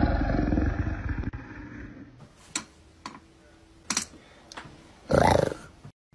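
A roaring big-cat sound effect fading out over the first two seconds, followed by a few sharp clicks and a short loud burst about five seconds in, then an abrupt cut.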